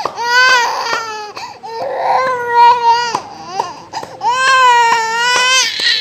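Young child crying hard in long, high-pitched wails, three drawn-out cries with short breaths between and a fourth beginning near the end, while being given nebulizer steam treatment for a chesty cough.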